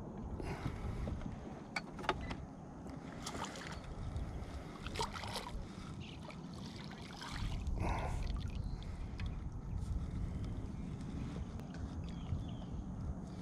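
A hooked crappie splashing at the surface and a landing net worked through the water beside an aluminum boat, with scattered short splashes and knocks. A louder low rumble comes in about halfway through.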